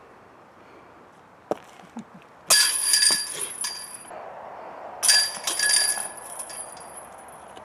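Disc golf putts hitting the hanging chains of a metal basket twice, each a loud jingling metallic crash that rings on for about a second, the second about two and a half seconds after the first. A couple of soft knocks come before the first hit.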